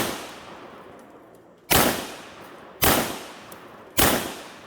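Gunshots fired one at a time at a tree to shoot it down: three sharp shots a little over a second apart, each trailing off in a long echo, with the echo of a shot just before dying away at the start.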